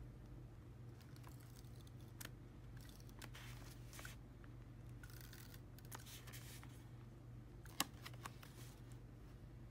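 Quiet paper-craft handling: photo prints and washi tape rustling and scraping on a journal page, and a tape runner drawn across the paper, with small clicks, the sharpest near the end.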